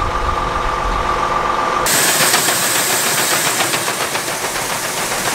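Farm machinery running with a low rumble and a steady high whine. About two seconds in this gives way to a steady hiss with a dense fine patter: shelled corn pouring from the auger into a grain trailer.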